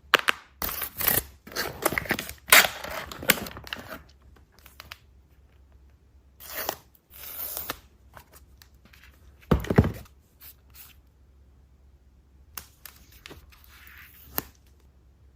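Packaging handled and opened during an unboxing: bursts of tearing, scraping and crinkling with sharp clicks and taps, busiest in the first few seconds, then in shorter clusters separated by pauses.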